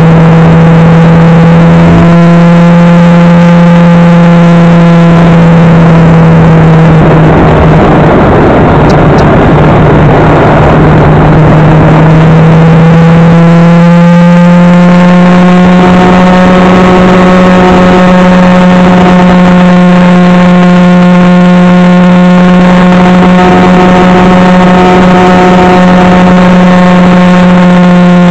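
Motorcycle engine running at a steady cruise: a very loud, steady drone with wind rush. About seven seconds in the engine note sinks under a noisier rush, then comes back around twelve seconds in, a little higher in pitch, and holds steady.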